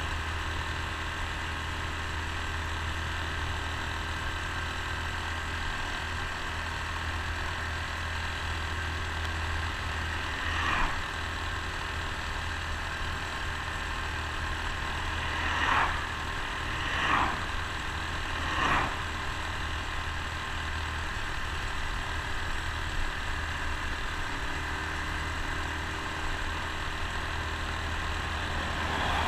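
Honda Super Cub C125's single-cylinder four-stroke engine running steadily while riding at road speed. Four brief, louder whooshes come in the middle stretch, one on its own and three close together.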